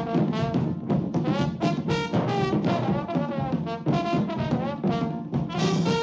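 Brass-led swing band music, with trumpets and trombones playing quick, changing notes.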